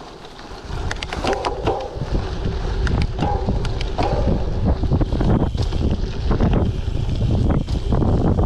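Gravel bike on 38mm WTB Riddler tyres riding over a rough trail: wind buffeting the action-camera microphone, tyre rumble, and frequent sharp rattles and knocks from the bike. It gets much louder about a second in and stays loud.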